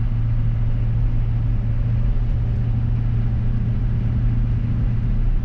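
Cab interior sound of an M1008 CUCV military truck's 6.2-litre V8 diesel pulling it along at a steady cruise: a steady low drone with road noise underneath and no change in engine speed.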